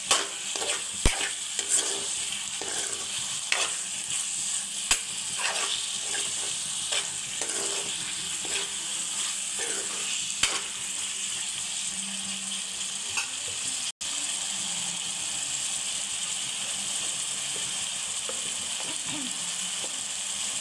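Mutton sizzling in oil in a black kadai once its cooking water has boiled off. For the first dozen seconds a metal spoon stirs it, scraping and clicking against the pan. After a short break, the sizzling goes on steadily without stirring.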